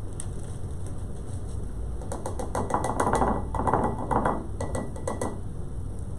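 Handheld powdered-sugar sifter being worked over a cake: a fast run of rattling clicks begins about two seconds in and stops about three seconds later.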